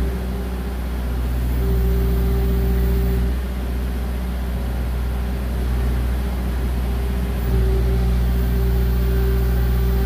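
Skid steer loader's diesel engine running under hydraulic load as the forks lift a steel hoist ramp, with a steady hydraulic whine. The engine rises in loudness twice, from about one and a half to three seconds in and again from about seven and a half seconds on.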